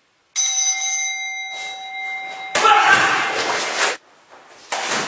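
A single bell-like ring starts suddenly, several clear tones sounding together and dying away after about two seconds. A loud noisy burst follows for about a second, and another starts near the end.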